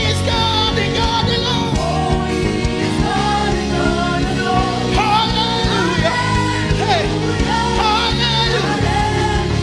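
Gospel worship music: singing over a sustained instrumental backing.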